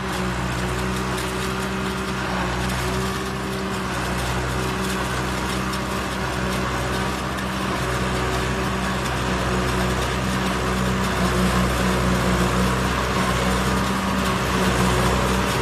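Tractor engine running at a steady working speed under load, driving an offset tractor-mounted corn silage harvester that chops standing corn stalks and blows the chaff out of its spout, with a steady rushing hiss over the engine. The sound grows louder through the second half as the machine comes nearer.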